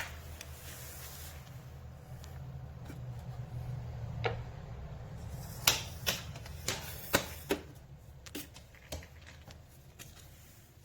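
A run of sharp clicks and knocks, the loudest bunched about halfway through, over a low steady hum.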